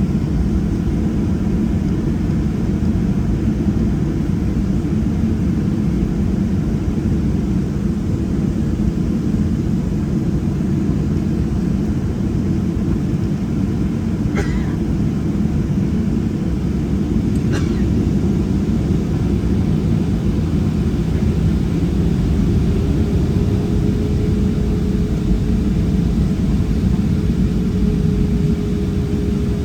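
Inside the cabin of a Boeing 737-700 taxiing: a steady low rumble from its CFM56-7B jet engines at taxi power and the rolling airframe. Two faint clicks come about halfway through, and a faint steady hum joins near the end.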